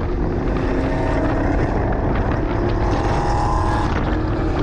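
2009 Porsche Cayman S's flat-six engine pulling hard under heavy wind and road noise on track. Its pitch climbs, then falls away about four seconds in.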